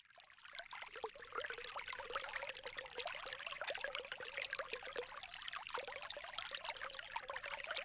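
Water trickling and splattering in a steady flow, like a small stream, fading in from silence over the first second or so.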